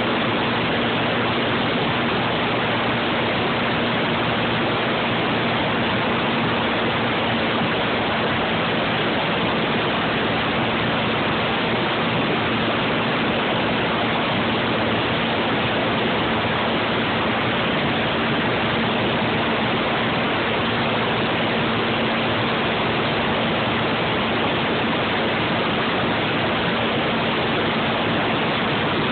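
Steady rush of wind over the microphone of a moving Suzuki Eiger quad, with a faint, even engine hum beneath it at constant speed.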